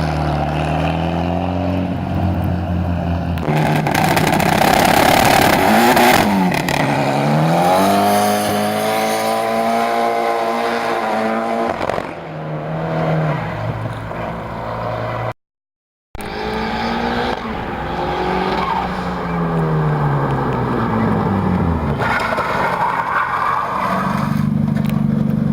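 Twin-turbo Ford Pinto four-cylinder engine in a Ford Sierra pulling hard through the gears: the revs climb, dip at each gear change and climb again, then fall away as the car slows. Near the end it settles into a lower, steady run. The sound drops out completely for under a second midway.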